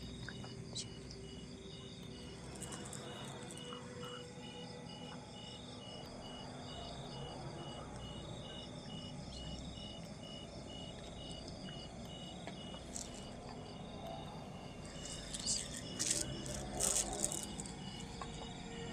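Crickets chirping at night in a steady, evenly pulsing trill. Near the end come a few soft clicks and rustles as prayer beads are handled.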